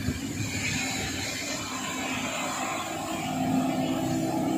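Motorboat engine running at speed, a steady drone with rushing wind and water noise.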